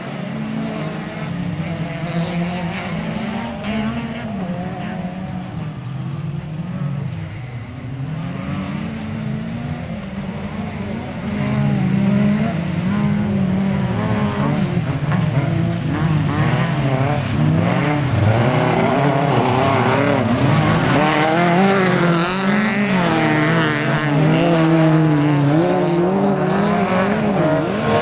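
Autocross race car engines revving hard, the pitch climbing and dropping again and again as the cars race round the track. Louder from about eleven seconds in as the cars come closer.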